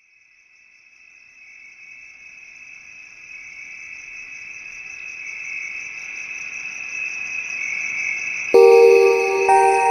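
Steady high-pitched insect trill that fades in and grows louder. About eight and a half seconds in, music with bell-like mallet tones comes in over it.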